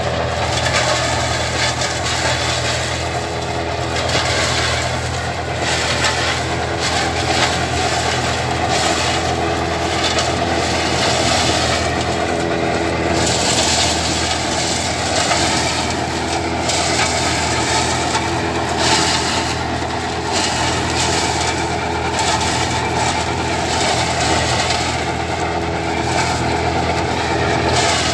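Tractor diesel engine running steadily under load while the PTO-driven mobile shredder chops standing plant stalks, with an uneven crackling hiss of shredding over the engine's low hum.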